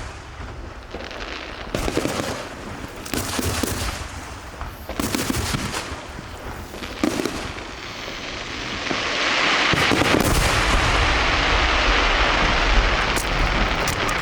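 Aerial fireworks going off: separate bangs every second or two, then from about nine seconds a dense, continuous crackling with a low rumble.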